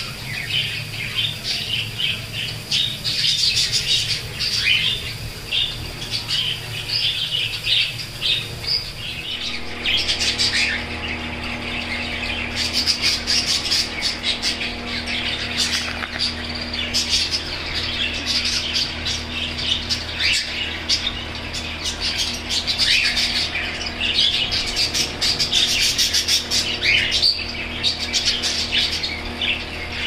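A flock of budgerigars chattering, with many rapid, overlapping squawks and chirps. A steady low hum joins about nine seconds in.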